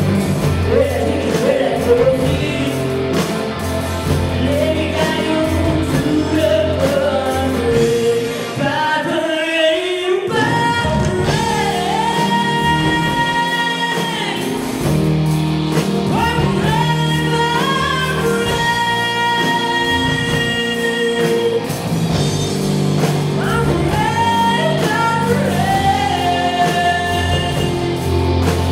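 A live pop-rock band, with electric guitar, bass guitar, drums and keyboard, accompanies two female singers. The band thins out briefly about nine seconds in while a voice slides upward, then long held, wavering sung notes follow.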